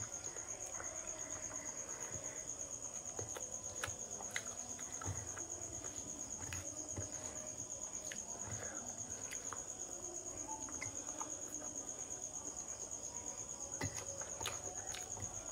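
A cricket trilling steadily on one high pitch, with scattered soft clicks and smacks of eating by hand: fingers mixing rice and vegetables on a steel plate, and chewing.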